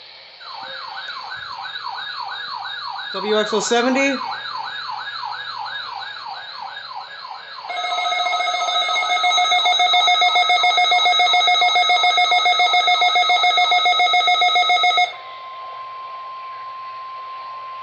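Electronic siren-like alert alarm wailing fast, about four sweeps a second, joined about halfway by a louder pulsing chord of steady tones; it cuts off suddenly, and a single steady NOAA Weather Radio warning alarm tone follows near the end, the sign of a weather radio tone alert test.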